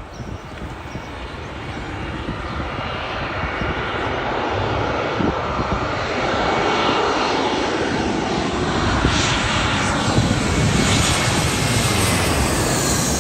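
Jet airliner engines growing louder as the plane approaches low overhead, then holding a loud, steady roar with a slowly falling whine near the end.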